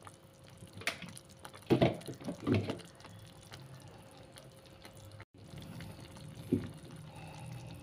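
Freshly ground wet masala paste being poured into the pot of vegetables, with liquid dripping and a few light knocks of utensils.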